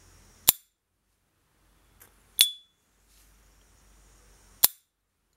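S.T. Dupont Ligne 2 gas lighter's hinged metal lid being snapped open and shut: three sharp metallic clicks about two seconds apart, the middle one ringing on briefly with the high 'ping' the model is known for.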